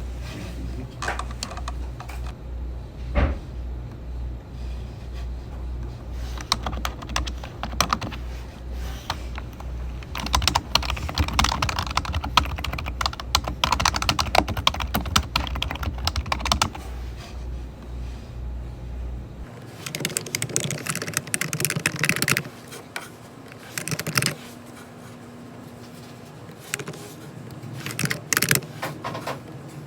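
Typing on a computer keyboard at a desk, with bursts of rapid keystrokes and pauses between them. A low steady hum under the typing stops abruptly about two-thirds of the way through.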